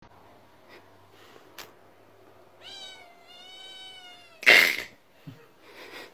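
Tabby kitten giving one long meow that rises and then levels off, followed at once by a short, louder burst of noise.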